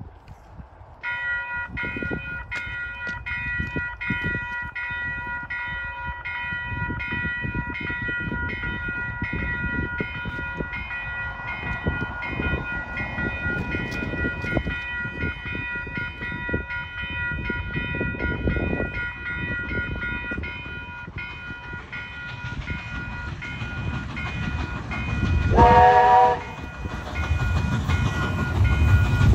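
Level crossing bells ringing steadily, struck about three times a second, as a train approaches with a rising rumble. About 26 s in, the train gives one short, loud whistle blast.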